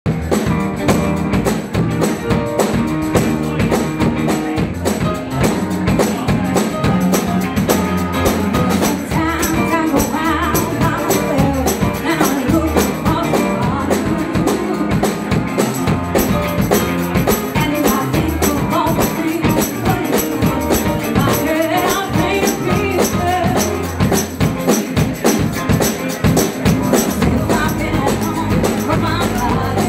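Live band playing upbeat soul and party music: singing over a steady beat, with tambourine, bass and saxophone.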